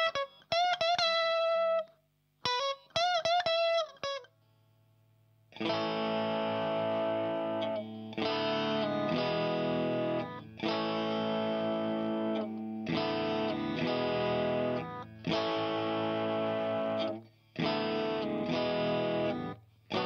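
Fender Rocky Stratocaster played through a THD Univalve single-ended KT88 tube amp into a Marshall cabinet with Celestion G12-K100 speakers. It opens with single-note lead lines with bends and vibrato, then comes a short pause with faint amp hum. About five seconds in come sustained overdriven chords, changing every second or two.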